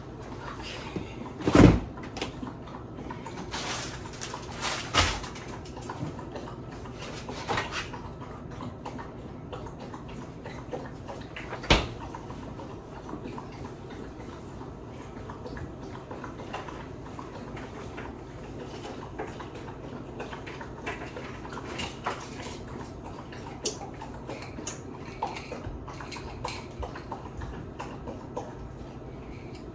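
Kitchen handling sounds: a run of knocks and clatters from cupboard doors and items being put down. The loudest comes about two seconds in and another near twelve seconds, with lighter clicks and taps after that, over a steady low hum.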